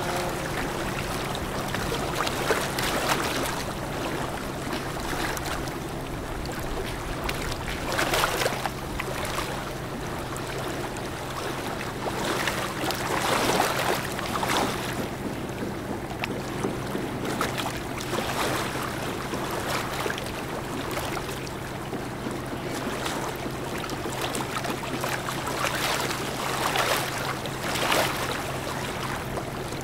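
Steady low drone of ship engines from the passing container ship and her tug, under a rushing wash of water and wind that swells several times.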